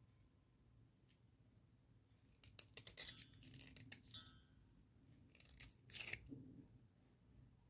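Wet slate pencil being cut into small pieces with a small metal cutter over a steel bowl: a few faint, sharp snaps and clicks, in short clusters about two and a half seconds in, around four seconds, and again around six seconds.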